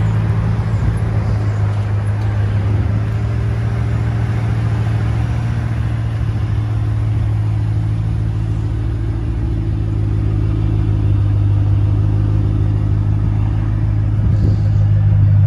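2007 Ford Mustang Shelby GT500's supercharged 5.4-litre V8 idling, a steady low, even engine note.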